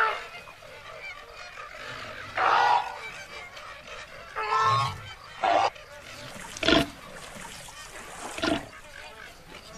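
A flock of flamingos calling: about six short calls spaced a second or two apart over a faint steady background.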